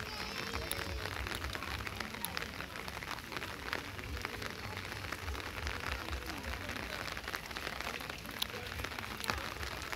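Steady rain falling on wet paving and foliage, with scattered single drops ticking close by and a low rumble underneath.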